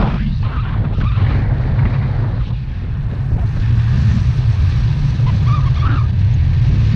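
Wind buffeting an action camera's microphone in paraglider flight, a loud, steady low rumble.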